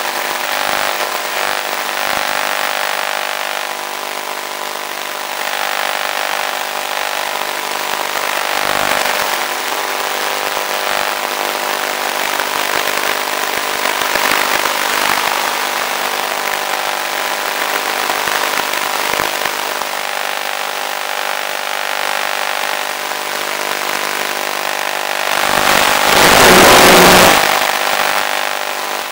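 Electric motor and propeller of an FPV model plane running steadily under power, heard through the onboard camera as a steady whine of several tones over rushing air noise. Near the end a much louder rush of noise lasts about two seconds.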